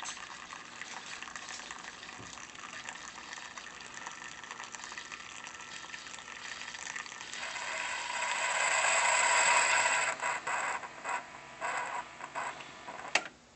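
Keurig Platinum single-cup coffee maker brewing: a steady hiss of its pump forcing hot water through the pod, growing louder about seven seconds in. Near the end it breaks into uneven sputters as the brew cycle finishes, with a sharp click just before it goes quiet.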